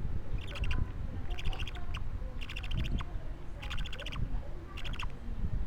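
Two-week-old budgerigar (parakeet) chick calling: five short, rapidly pulsed calls about a second apart, over a low rumble.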